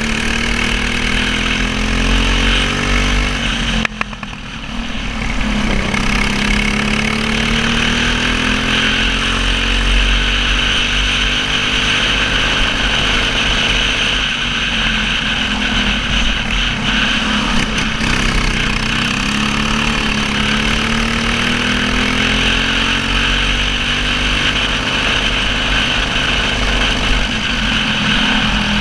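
Racing kart engine, its carburettor restricted by a black slide, heard from on board: the engine revs rise on the straights and fall back through the corners, with a short drop in level about four seconds in.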